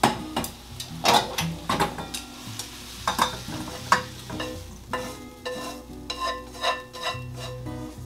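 Wooden chopsticks clicking and scraping against a nonstick frying pan as stir-fried vegetables are pushed out of the tilted pan, with some sizzling.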